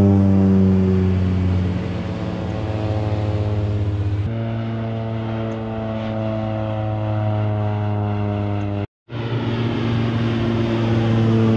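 A loud engine drone with a low, steady pitch that sinks slowly. The pitch jumps abruptly about four seconds in, and the sound drops out for a moment about nine seconds in.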